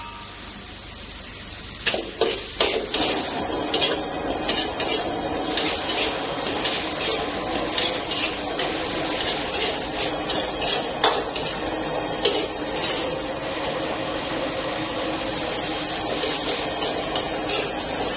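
Stir-frying in a wok over a gas burner: a steady hiss, with sharp clinks of a metal utensil against the wok, several close together about two to three seconds in and a louder one near eleven seconds.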